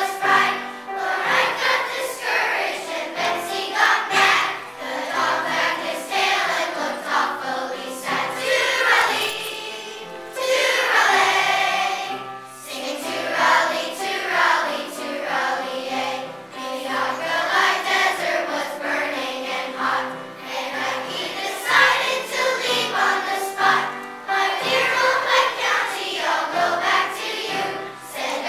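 Children's choir singing in unison, accompanied by an upright piano playing a bass line under the voices.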